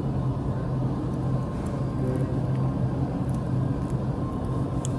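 Steady low mechanical hum of machinery or ventilation in an industrial room, with a faint steady higher tone above it and a few faint ticks.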